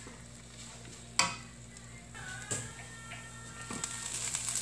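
Fried rice being stirred and scraped with a spatula in a wok, with a sharp knock of the spatula on the pan about a second in and a smaller one midway. A faint frying sizzle grows louder near the end.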